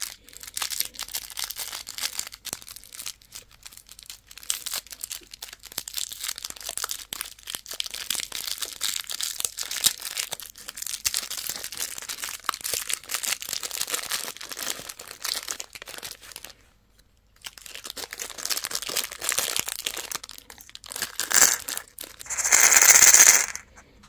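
Candy wrappers crinkling and tearing as they are unwrapped by hand, in dense crackly rustling with a short pause partway through and a loud rip near the end.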